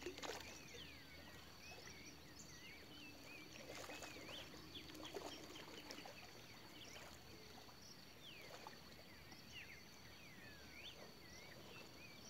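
Faint chorus of many birds calling, short chirps and whistled slurs overlapping throughout, over a steady high insect trill, with a few soft knocks.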